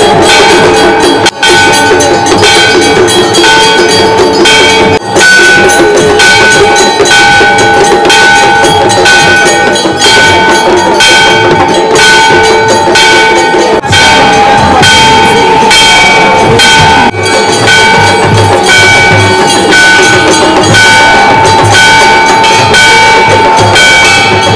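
Temple bells rung rapidly and without pause for the aarti: a dense run of quick strikes over steady ringing tones, loud throughout.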